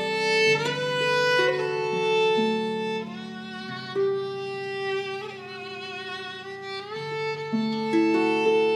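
Celtic harp playing a slow melody of plucked notes left to ring, over lower bass notes.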